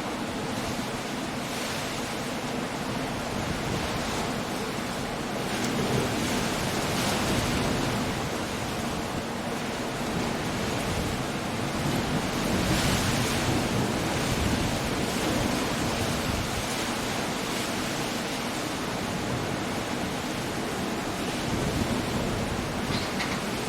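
Coastal storm: waves breaking on a rocky shore under wind and rain, a steady rushing that swells every few seconds as the surf comes in.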